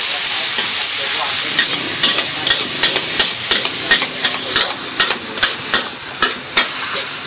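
Rice noodles sizzling in a steel wok while two metal ladles stir and toss them. From about a second and a half in until near the end, the ladles clack against the wok about three times a second over the steady hiss.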